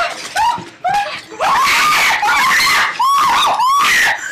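Shrill, panicked screaming: a few short cries that rise and fall in pitch, turning into loud, almost unbroken screams about a second and a half in.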